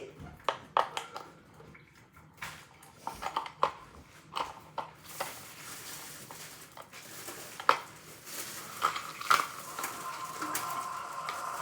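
Small pieces of ice clicking and clattering against a bowl as they are pushed out of a silicone Pop-It mould, in irregular knocks. A steady hiss joins about five seconds in.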